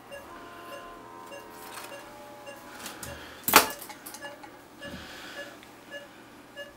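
Patient monitor beeping with the dog's pulse, a short beep about every 0.6 seconds. Over the first two seconds an electrosurgical (cautery) unit sounds its steady activation tone while tissue is burned off. About three and a half seconds in comes one sharp knock.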